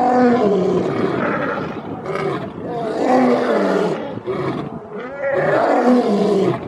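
Lion roaring: three long, loud, pitched roars that bend up and down in pitch, each separated by a short dip.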